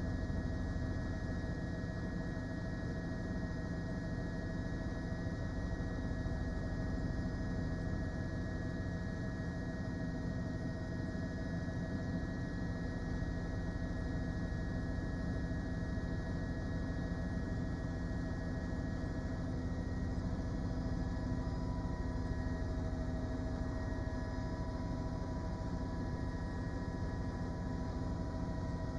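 Steady drone of a news helicopter heard on its raw aerial camera feed: an even low rumble with several constant tones above it, unchanging throughout.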